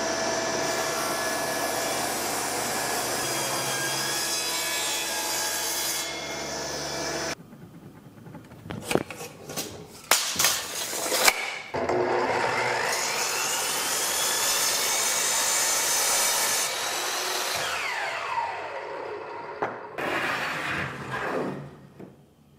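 Table saw ripping a red oak board, running steadily for about seven seconds before stopping abruptly. After a few wooden knocks, a sliding miter saw spins up with a rising whine, cuts through the oak, and winds down with a falling whine.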